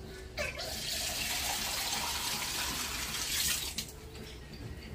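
Water running from a tap into a small plastic mug, starting about half a second in and shut off sharply near the end.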